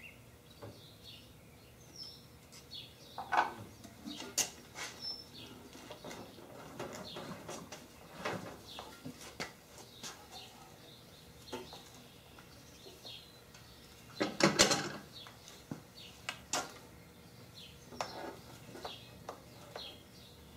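Scattered metal clicks and knocks as the cast-iron milling head of a Grizzly G0704 mill is loosened and tilted on its column, with a louder burst of knocks about fourteen seconds in.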